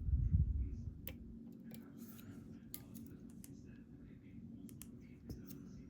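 Lock picking in an EVVA ICS dimple lock: faint scraping of the pick and tension tool in the keyway, with a handful of small sharp clicks. A dull low bump of handling noise at the start.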